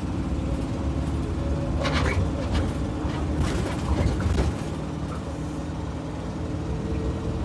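Gasoline engine of a 2022 IC CE school bus running steadily, with an exhaust leak from a faulty catalytic converter. Several sharp knocks or rattles come between about two and four and a half seconds in.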